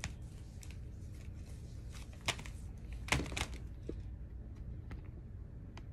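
Handling noise: a few short rustles and clicks, the clearest about two seconds and three seconds in, over a low steady hum.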